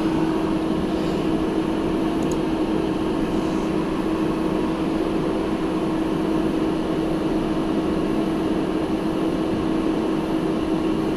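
Steady fan hum with one constant low tone running through it, unchanging throughout.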